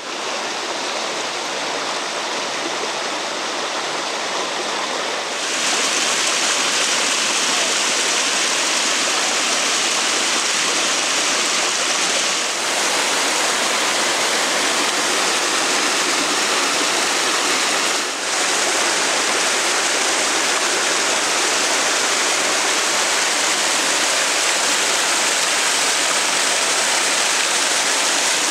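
Small waterfall cascading through a narrow rock chute: a steady rush of white water, growing louder about five seconds in.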